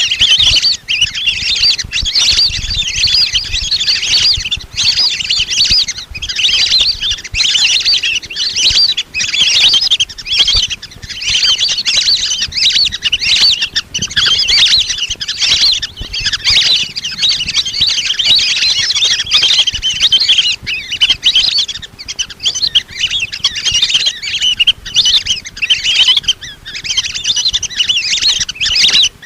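A flock of lesser whistling ducks calling without pause: a dense, overlapping chorus of high, squeaky whistles.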